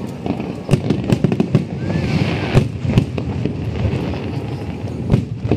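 Aerial fireworks going off: a quick run of crackling bangs about a second in, then separate louder bangs.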